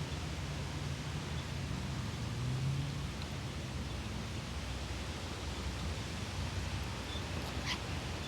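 Wind blowing outdoors and over the microphone: a steady rushing noise with an uneven low rumble. A short faint high sound comes near the end.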